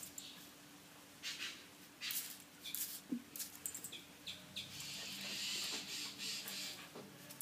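Jack Russell puppy's claws scratching and scrabbling on a tiled floor as it pounces and paws at a bug, in short scattered scrapes with a longer scuffle past the middle.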